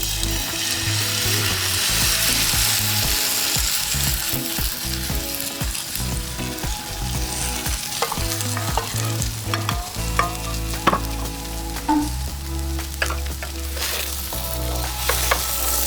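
Food sizzling as it fries in a hot pan and is stirred, with a scattering of sharp clicks and taps from a utensil on the metal in the second half.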